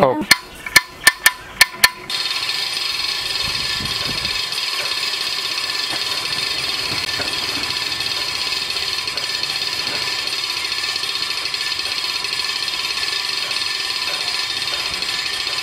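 Hand-cranked winch that raises the poultry nipple drinker lines, clicking several times as it starts to be wound; about two seconds in a steady, even hum takes over and holds.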